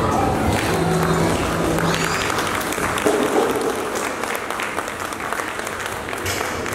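Audience applauding, a dense patter of many hands clapping, with a few held tones of the ending music or voices in the first couple of seconds.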